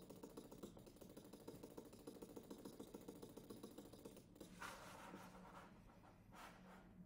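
Near silence: faint room tone with light, rapid ticking, and a soft brief hiss a little past halfway.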